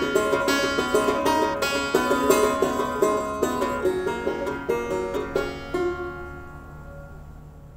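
Plucked-string music, a quick run of picked notes, that ends about six seconds in on a last note left ringing and fading away.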